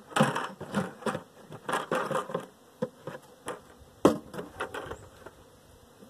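Irregular bursts of rustling and a few sharp knocks as a man handles and sits down on a plastic bucket, with honeybees buzzing around the hives.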